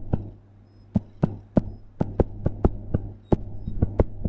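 Stylus tapping and clicking on a tablet screen while handwriting, a string of sharp clicks about three a second, over a steady low hum.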